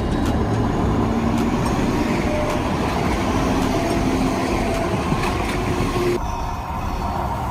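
Tram running on its rails, a steady rumble with a faint hum; the sound changes abruptly about six seconds in.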